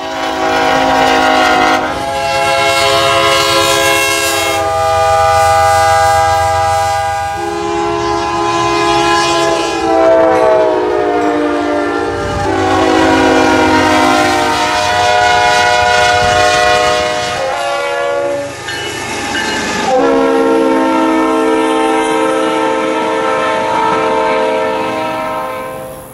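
Diesel freight locomotive air horns sounding at grade crossings, several trains one after another: long held blasts of a multi-note chord, the pitch dropping twice as a locomotive passes by.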